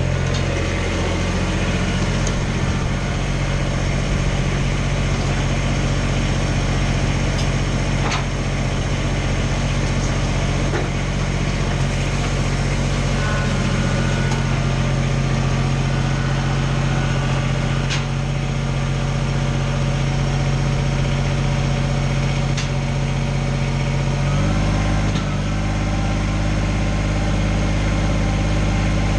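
Kubota BX25 tractor's three-cylinder diesel engine running steadily; about 24 seconds in its pitch drops as the engine slows. A few faint clicks sound along the way.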